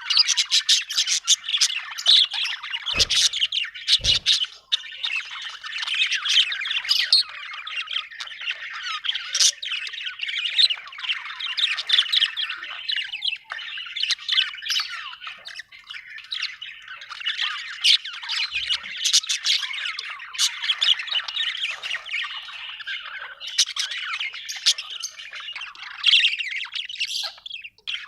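Budgerigar chirping and chattering without a break, a busy stream of quick high chirps and squawks, the contented chatter of a happy budgie.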